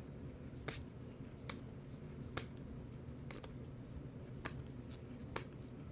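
Baseball trading cards being flipped through by hand, each card moved off the stack with a short sharp click, about one a second, over a faint low hum.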